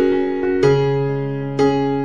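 Background music: slow piano chords struck about once a second, each left to ring and fade.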